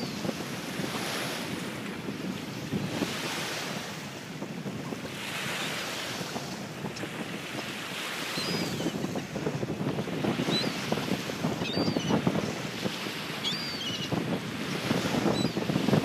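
Wind gusting over the microphone along with a wash of surf. From about halfway on, several short, high calls of gulls flying overhead.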